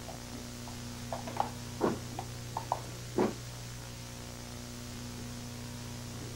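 Steady low electrical hum with a handful of soft taps and knocks about one to three seconds in: footsteps crossing from carpet onto a tiled floor.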